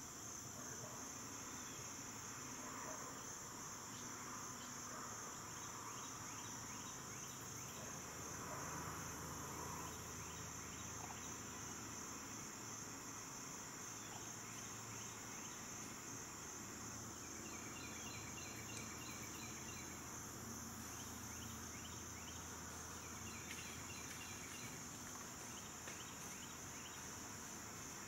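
A steady chorus of insects, probably crickets and katydids, drones as one continuous high note. Twice in the second half, another insect adds a run of rapid, evenly spaced chirps.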